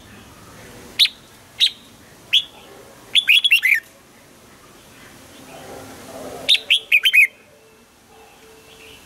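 Red-whiskered bulbul singing: three short single notes, then two quick phrases of rapidly repeated falling notes about three seconds apart.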